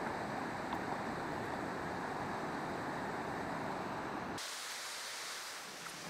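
Steady rushing roar of a rocky waterfall and rapids heard from a footbridge above. About four seconds in it cuts abruptly to a thinner, higher hiss.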